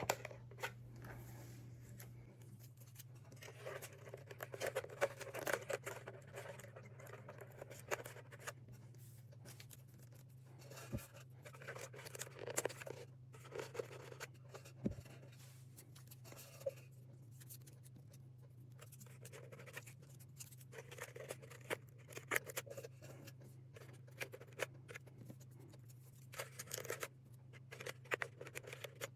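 Faint scratching and rustling of thin plastic shim strips being handled and pushed into the gap between a loudspeaker's magnet and its new voice coil, in small irregular touches, over a steady low hum.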